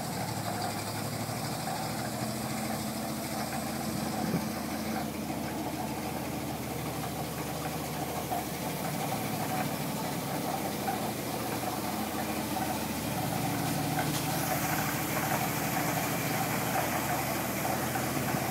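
A 1964 American LaFrance fire truck's 600-cubic-inch Continental six-cylinder gasoline engine running at low revs as the truck creeps along. The engine note stays even, growing a little louder about two-thirds of the way through, and a steady hiss joins in near the end.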